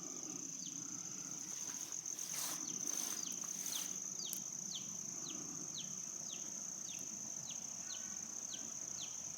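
Outdoor summer insect chorus: a steady high-pitched insect drone, with a run of short falling chirps repeating about twice a second. A brief rush of noise comes between about two and four seconds in.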